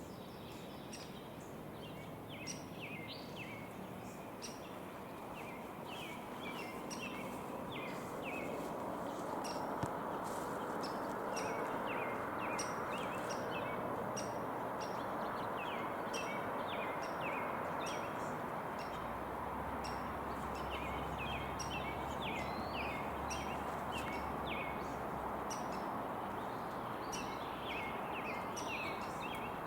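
Many short, high bird chirps and calls from small birds, over a steady background rush.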